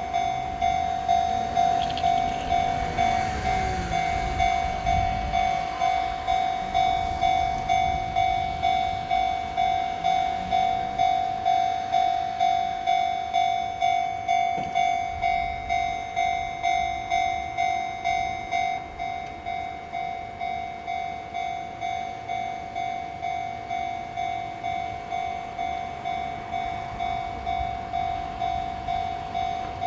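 Japanese railway level-crossing warning bell ringing steadily, evenly repeated strokes about one and a half a second, sounding while the barriers are down for an approaching train. It becomes a little softer about two-thirds of the way through.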